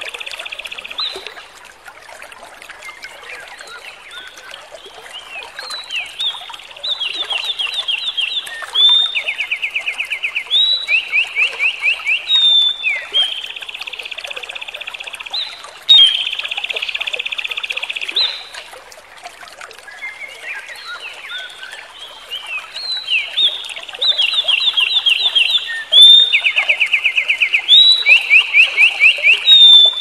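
A small songbird singing a long, continuous song: phrase after phrase of quickly repeated notes and buzzy trills, each held for a second or two before switching to the next, with a few quieter, scrappier passages between.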